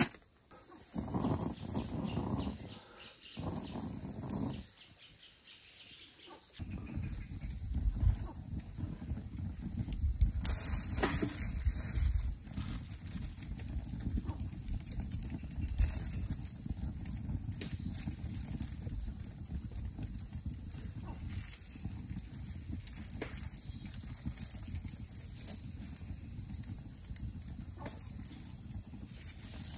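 Steady insect chorus, a continuous high-pitched buzz, over a low rumble of outdoor background noise that comes in about six seconds in. A few brief scuffing noises in the first few seconds.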